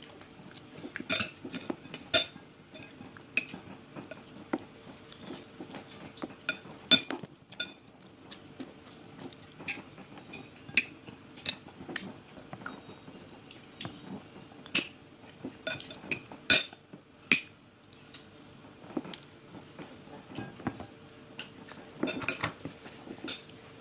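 A metal fork clinking and scraping against a ceramic plate as a child eats, in irregular sharp clinks with a few louder knocks.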